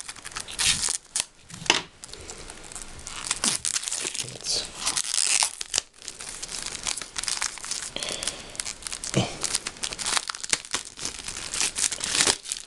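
Plastic shrink-wrap film crinkling and tearing in irregular bursts as it is peeled off a disc case by hand.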